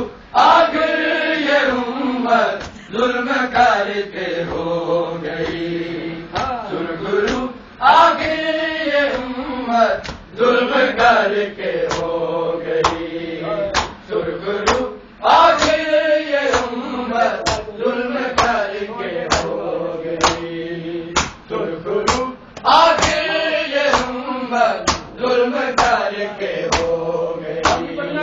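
Men chanting a noha lament in repeating phrases, with a steady rhythm of sharp chest-beating slaps (matam) keeping time.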